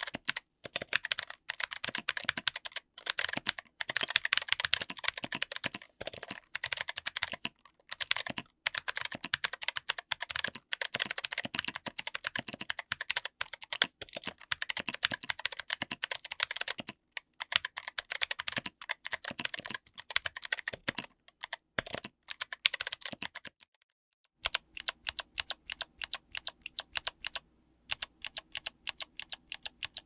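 Fast two-handed typing on a mechanical keyboard with Kailh Arctic Fox clicky switches, SA-profile doubleshot ABS keycaps, an FR4 plate and an aluminium case: a dense, uneven stream of sharp clicky keystrokes. About three-quarters of the way through, after a short pause, it changes to one key pressed over and over at an even pace, with a faint steady hum underneath.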